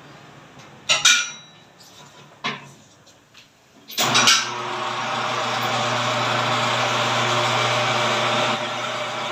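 Tyre-changer machine: two metal clanks, then about four seconds in its motor starts with a click and runs steadily, a low hum with a hiss, as the wheel is worked to demount the tyre.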